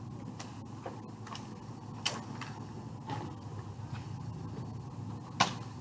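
Nerf blaster clicking as it is handled and fired: scattered small clicks, with a sharper snap about two seconds in and another near the end.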